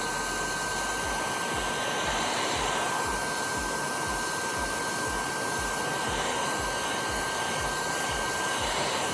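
Electric heat gun blowing steadily with a high, even whine, heating the cured resin edge until it softens and bubbles.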